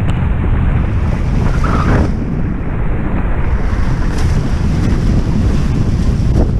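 Heavy wind buffeting the microphone over the rushing splash of water off the hulls of a Hobie 16 catamaran sailing at speed.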